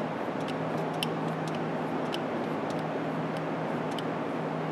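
Light, irregular clicks from the knob of an R-134a low-side quick coupler being turned to open its valve and let refrigerant pressure into the gauge. They sit over a steady low hum and hiss.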